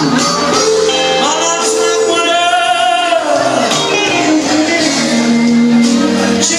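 A song: a voice singing long held notes, some with a wavering vibrato, over instrumental backing.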